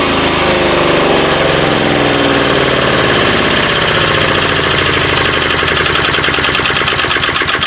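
3.5 hp Tecumseh small single-cylinder engine running fast, then slowing as the throttle is eased back. Its firing beats become distinct and more widely spaced near the end.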